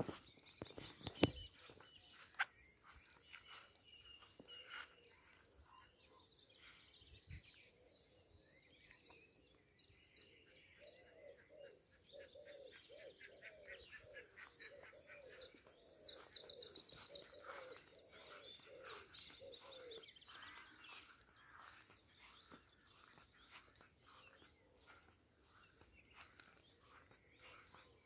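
Dawn chorus of wild birds singing. A loud, rapid, high-pitched trill runs for several seconds in the middle, over a long series of low, evenly spaced calls, about one and a half a second. A couple of sharp knocks come in the first few seconds.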